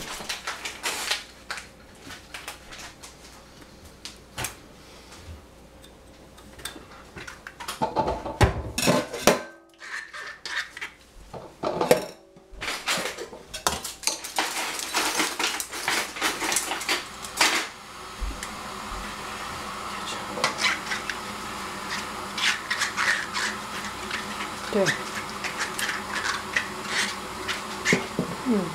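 Clatter and knocks of a stainless steel bowl in a metal kitchen sink, with water sloshing as quinces are handled and scrubbed in it. About two-thirds of the way through a steady hiss sets in under the knocks.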